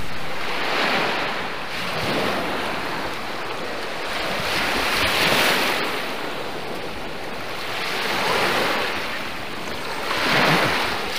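Lake Huron waves breaking and washing up on a beach, the surge rising and falling four times.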